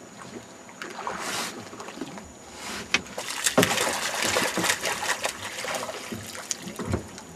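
Water splashing and sloshing, with a run of sharper splashes in the second half.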